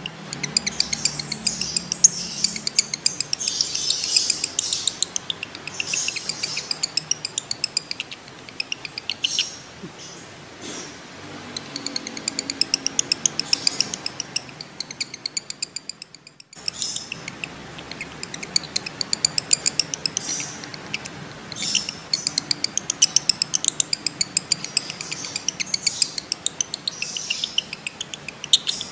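Male lovebird in breeding condition giving its long chattering trill (ngekek), a fast run of sharp, high ticking chirps. It breaks off briefly a little past halfway, then starts up again.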